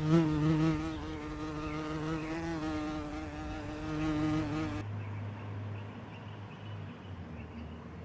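A flying insect buzzing with a steady, slightly wavering pitch; about five seconds in the buzz gives way to a fainter, lower hum.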